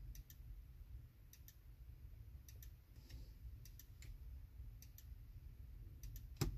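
Faint, regular double ticks, a pair about every second, inside a car cabin, then a louder knock near the end.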